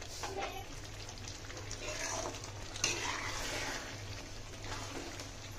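A spoon stirring a thick, creamy chicken masala in an aluminium kadhai over a gas flame, the oil sizzling under it in a steady crackle with swishing strokes of the spoon. There is one sharper click about three seconds in.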